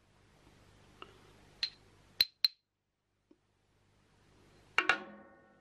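Cut pieces of aluminum round bar clinking as they are handled: a couple of light taps, two sharp clinks near the middle, and a double clink near the end that rings briefly like struck metal.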